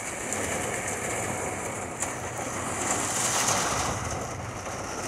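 Heavy thunderstorm rain and wind heard from inside a Volkswagen Kombi van, rain hitting the metal body and glass as a steady hiss that swells a little about three seconds in.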